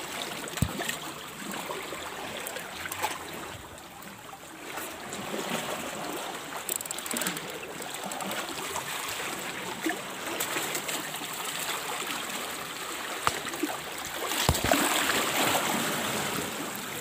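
Shallow seawater washing and trickling over shoreline rocks, with a few small knocks along the way.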